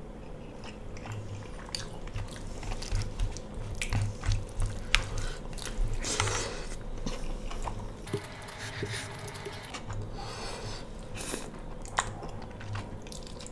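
Close-miked chewing and mouth sounds of a person eating mutton curry and rice by hand: irregular wet smacking and mastication, with a few sharp clicks.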